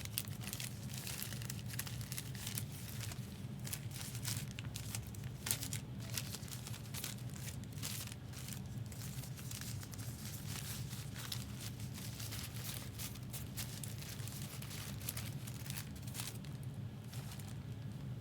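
Foil trading-card pack wrappers crinkling and tearing as packs are opened and handled, a dense irregular crackle over a steady low hum.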